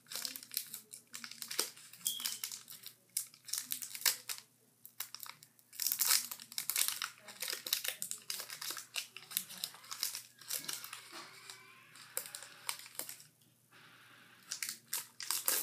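Foil Pokémon booster-pack wrapper crinkling and tearing as it is opened by hand, in many short, irregular crackles.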